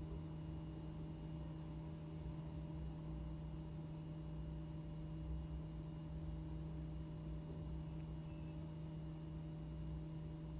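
Steady low hum with a few fainter higher tones over a low rumble, unchanging throughout; no lid clatter or bubbling stands out.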